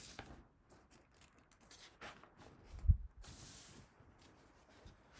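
Quiet paper handling as a picture-book page is turned: faint rustles, a single low thump about three seconds in, then a short papery swish.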